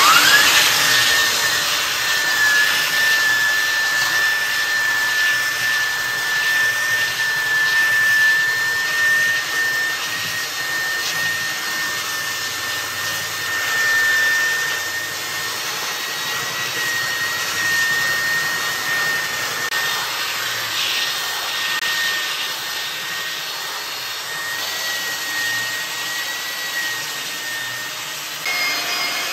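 AEG belt sander starting up with a rising whine, then running steadily as it sands the flat face of a wooden board, a high motor whine over the hiss of the abrasive belt on the wood. Its tone shifts slightly just before the end.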